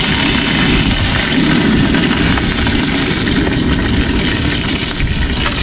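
Strong wind buffeting the microphone: a steady, loud rushing rumble.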